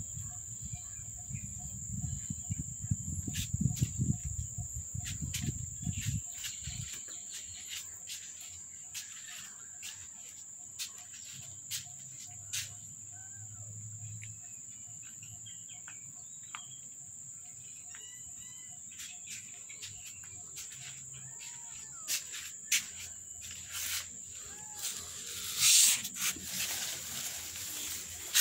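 Steady high-pitched insect drone, with scattered clicks. A low rumble during the first six seconds and a loud brief noise near the end.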